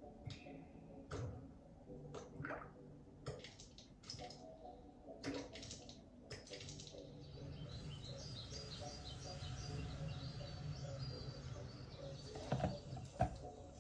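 Faint birdsong, high quick chirps, from the nature video playing on the car head unit, over a low steady hum. Light clicks and taps sound in the first half, with a couple of sharper knocks near the end.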